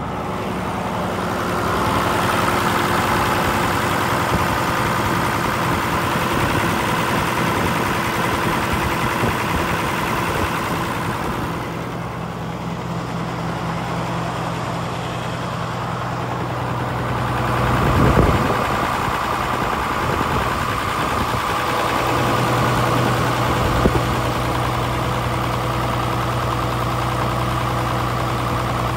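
The M35A2 deuce-and-a-half's multifuel diesel engine idling steadily, with a whine riding over it that fades for a few seconds in the middle. There is a brief louder swell about two-thirds of the way through.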